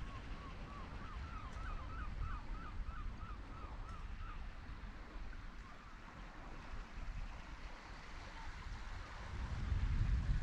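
A gull calling in a quick run of about a dozen short, rising notes over the first two seconds, over a steady low rumble of wind on the microphone and sea; the rumble swells louder near the end.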